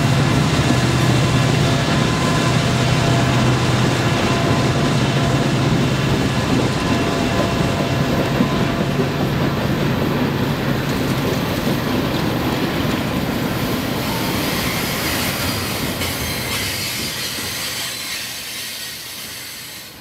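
Diesel locomotives of a Union Pacific freight train passing with a steady engine drone, giving way to the rumble and clatter of rolling freight cars, fading out near the end.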